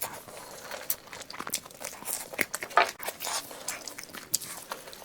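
A person biting and chewing chicken, with irregular crunches and wet smacking clicks.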